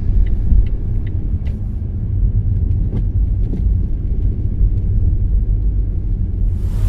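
Car driving: a steady low rumble of engine and road, with a few faint light ticks in the first couple of seconds.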